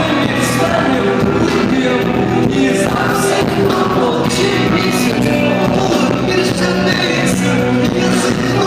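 Rock song with singing over a steady drum beat, cymbal or snare hits falling about twice a second.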